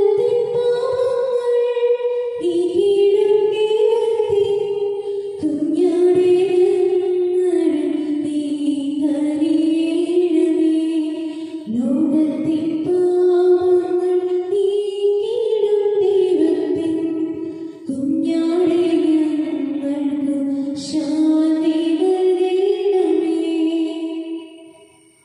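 A woman singing a slow hymn, long held notes in phrases of a few seconds each with short breaks between; the singing fades out near the end.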